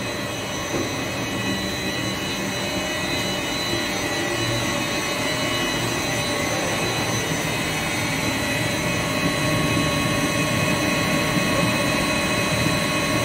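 Blown film extrusion machine with its haul-off unit running in production: a steady machine hum with several steady high whines over it, growing a little louder about nine seconds in.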